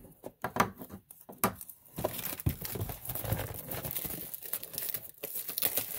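Plastic shrink-wrap on a trading-card box being torn open and crinkled: a few sharp crackles in the first second or so, then steady crinkling and rustling.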